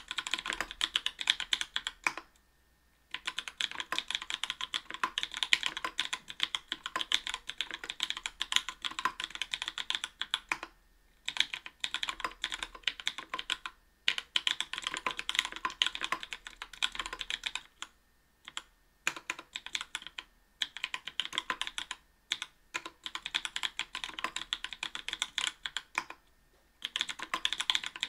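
Typing on an Octagon V3 aluminium-plate mechanical keyboard with NK_ Blueberry 80g tactile switches lubed with Krytox 205g0 and GMK keycaps: steady runs of keystrokes broken by several short pauses.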